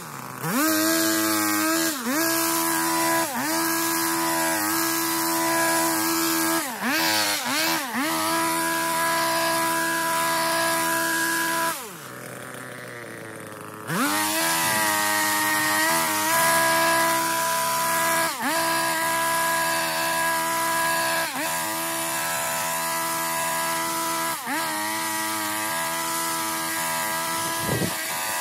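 A petrol garden power tool, of the chainsaw or hedge-trimmer kind, running at high revs, its pitch dipping sharply and recovering every one to three seconds. About twelve seconds in it drops to a quieter low idle, then revs back up two seconds later.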